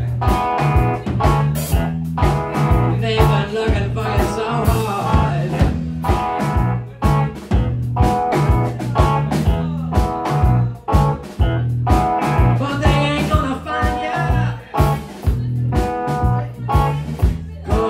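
Live blues band playing: electric guitar over bass guitar and drums, with a steady, driving beat.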